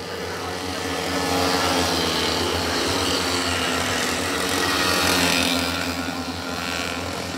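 Small engines of several dernys, the motorised pacing bikes, running as the line of dernys and their cyclists rides past on the track. The sound grows louder over the first second or two, peaks about five seconds in, then fades.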